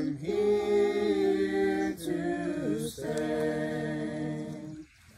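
Unaccompanied singing of a worship song, with long held notes and short breaks between phrases, ending about five seconds in.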